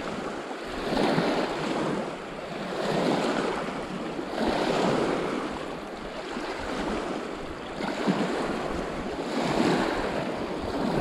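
Small waves washing in over a rocky, pebbly lake shore, swelling and falling every second or two.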